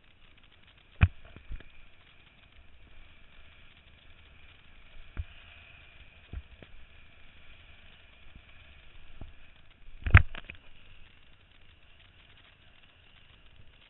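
Kiteboard riding over sea chop: a steady low rush of wind and water, broken by a handful of sharp knocks, the loudest a double knock about ten seconds in.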